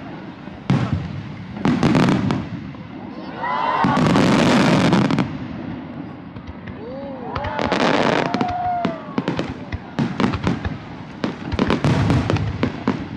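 Aerial firework shells bursting in quick succession: many sharp bangs and crackles. Two longer rushing swells of noise build about four and eight seconds in.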